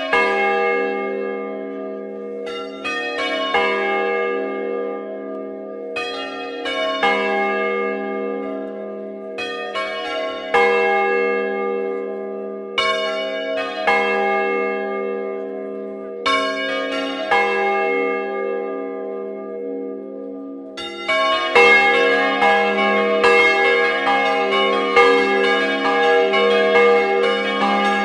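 A frame of six bronze church bells cast by Francesco De Poli in 1994 and tuned in a major sixth, swung and rung by hand in the Bolognese style. The strokes come in repeating groups about every three seconds, each left ringing on, and about two-thirds of the way through they thicken into a dense, continuous peal as the bells ring together.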